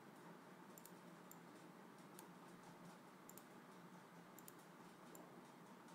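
Near silence, with a handful of faint, scattered computer mouse clicks.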